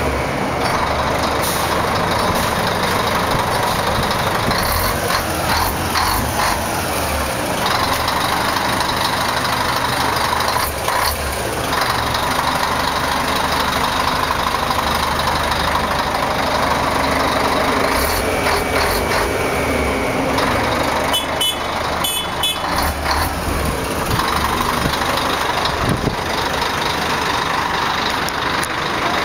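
Scania K420 coach's rear diesel engine idling steadily, heard close up beside the bus, with a few short high beeps about three-quarters of the way through.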